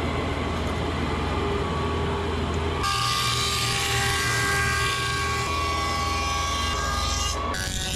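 Woodworking power machine running steadily as boards are surfaced, a loud mechanical drone with held whining tones. The tone shifts abruptly about three seconds in and again near the end.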